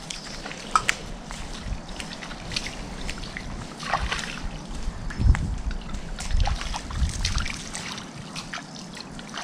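Bare feet wading through ankle-deep water over mud, with small irregular splashes and trickling water, and a few low thuds in the middle.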